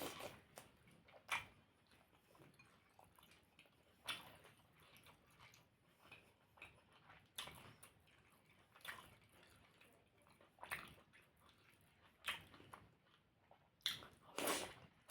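Close-miked eating sounds: biting and chewing puri with spicy aloo dum, in short, separate wet mouth noises about every one to two seconds, the loudest near the end.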